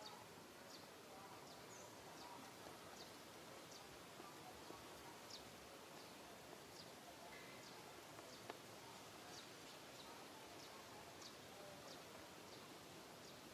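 Near silence: faint outdoor ambience with a thin, high chirp repeating irregularly about once or twice a second.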